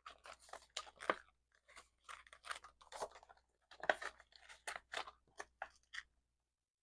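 Paper bills and cash envelopes being handled: quick, irregular crinkling and rustling that stops about six seconds in.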